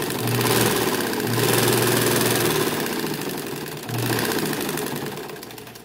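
Old black domestic sewing machine driven by a washing-machine (tanquinho) motor, stitching through polyester cloth: a loud, rapid, steady clatter of needle strokes that fades near the end.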